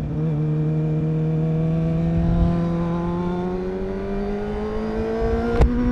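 2005 Suzuki GSX-R's inline-four engine with a Yoshimura exhaust accelerating, its scream rising slowly and steadily in pitch, with a short sharp click near the end.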